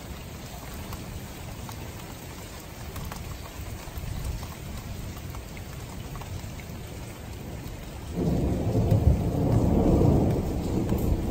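Steady rain with faint drop ticks. About eight seconds in, a loud low rumble of thunder starts suddenly and keeps going.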